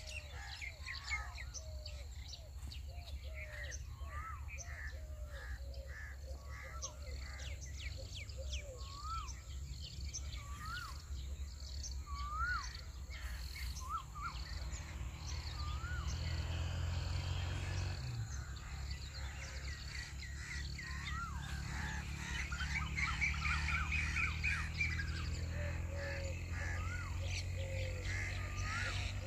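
Several birds chirping together, one repeating a short rising-and-falling whistle every second or two, with a fast trill late on. A low steady rumble runs underneath.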